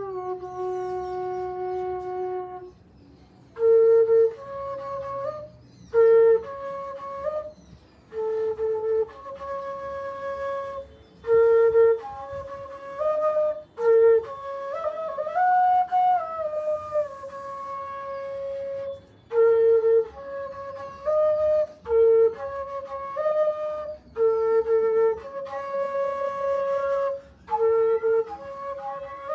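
Solo flute playing a slow melody of held notes in short phrases with brief pauses between them.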